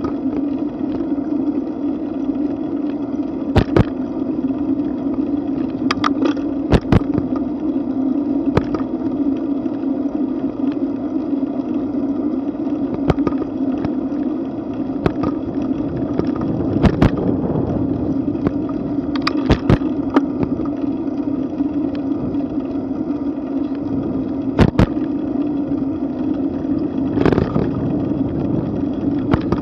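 Bicycle rolling along a cracked asphalt path at about 13 mph: a steady rumble of tyre and wind noise, with scattered sharp knocks as the bike jolts over bumps in the pavement.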